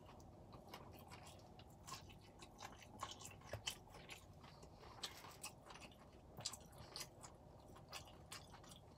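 Faint close-up chewing of pad thai noodles, with small irregular mouth smacks and clicks throughout.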